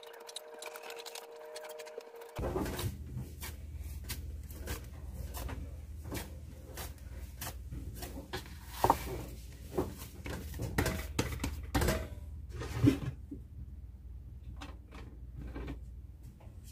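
Wheat-flour (atta) dough being kneaded by hand in a steel tray: repeated soft squishes and thumps of the dough pressed and turned against the metal, with several louder thumps between about nine and thirteen seconds in, as the dough is finished for rotis. A low steady hum comes on about two seconds in.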